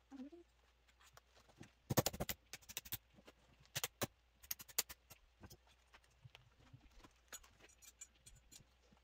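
A ball-peen hammer taps a thin steel rose petal, held in vise grips against a wooden stump, curling the petal into shape. The taps come in quick runs of light strikes, the densest about two seconds in and more around three, four and five seconds, then a few scattered taps.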